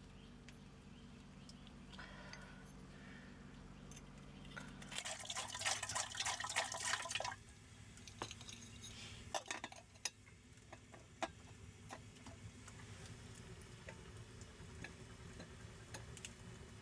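A liquid sound of about two seconds, like water being poured or splashed, followed by a wood fire crackling with scattered sharp pops.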